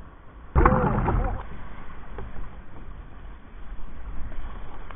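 Ocean water rushing around a surf kayak in the waves. About half a second in, a sudden loud rush of wave and spray hits for under a second, then the water settles back to a steady wash.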